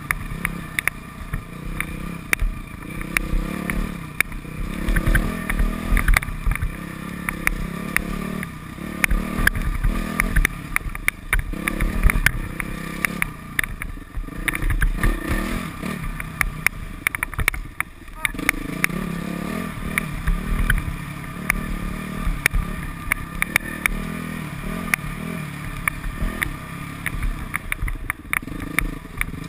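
Modified Yamaha YZ426F single-cylinder four-stroke dirt bike engine, revving up and easing off again and again while riding an enduro trail, with many sharp clicks and knocks over it.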